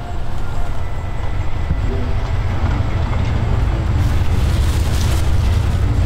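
Low, steady rumble of a car engine, growing slightly louder near the end.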